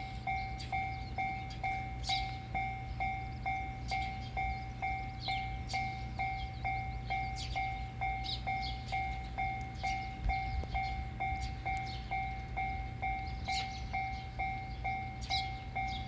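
Japanese level crossing's electronic warning bell ringing its 'kan-kan' alarm at a steady pace, about two and a half strokes a second, while the barriers are down before a train. Short high falling chirps come over it every second or two.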